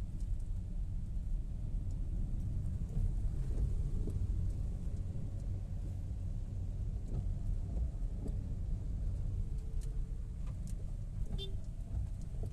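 Low, steady rumble of a car's engine and tyres heard from inside the cabin while driving in heavy rain, with scattered faint ticks over it.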